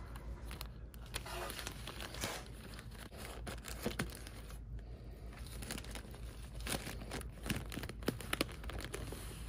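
Thin plastic air-cushion film crinkling and rustling as it is handled and fed through the inflation machine's guide, with scattered small clicks.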